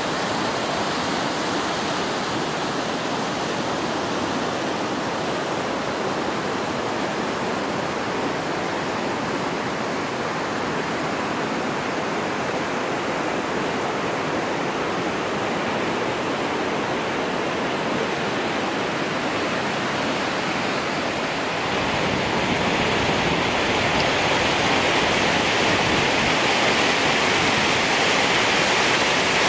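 River rapids rushing over rock ledges as a steady, high-volume white noise. About three quarters of the way through it turns louder and brighter.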